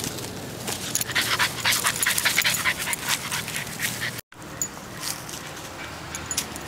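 Chocolate Labrador puppy panting close to the microphone in quick, irregular breaths, which cut off suddenly about four seconds in and leave only quieter outdoor sound.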